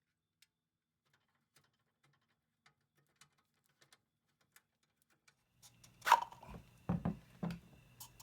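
Faint scattered clicks, then about two-thirds through a low steady hum starts and several loud knocks and clattering follow.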